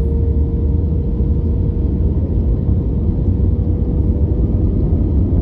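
Airplane noise: a steady low rumble with a constant hum.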